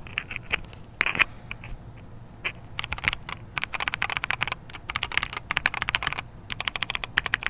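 Typing on a mechanical keyboard with stock, unlubricated brown (tactile) switches: rapid keystroke clicks and clacks, a few scattered presses at first, then fast bursts of typing from about three seconds in.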